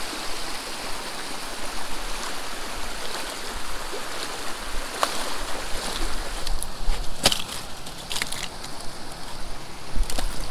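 Small creek flowing, a steady rushing of water, with a few sharp clicks about five and seven seconds in.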